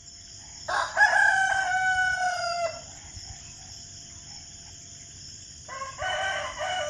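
Rooster crowing twice, each crow a long call of about two seconds that falls slightly in pitch at the end, over a steady high-pitched hiss.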